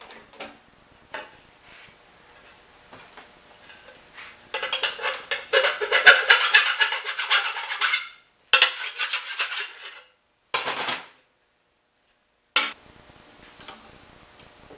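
Drill press bit cutting holes through a thin metal flange plate: a harsh, rasping grind for about three and a half seconds, then a few shorter bursts of drilling, each cut off abruptly. Light clicks of the plate being handled come before the drilling.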